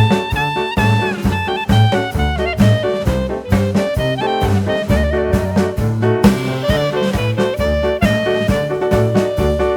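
Upbeat swing-style jazz background music with brass lead and a steady walking bass and drums.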